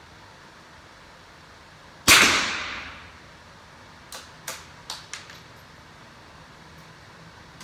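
A single target rifle shot about two seconds in, ringing out in the range for about a second, followed by a few light clicks.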